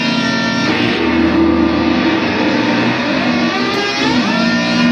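Electric guitar played with a small metal slide pressed on the strings near the bridge: sustained chord-like tones that slide up in pitch and then hold, twice, over a steady noisy hiss.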